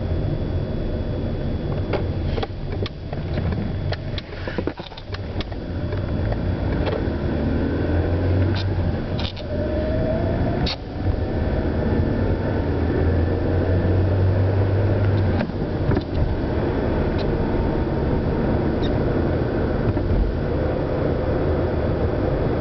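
Peugeot 307 car running, a steady low rumble with a few sharp clicks in the first half. A pitch rises through the middle, as when the car speeds up.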